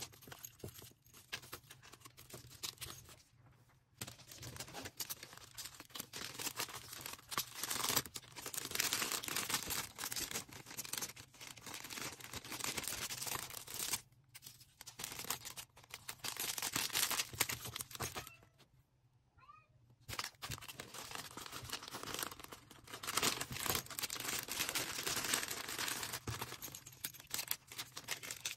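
Plastic packaging being handled while orders are packed, crinkling and rustling with small clicks and taps. The noise stops briefly a few times, for a longer pause about nineteen seconds in.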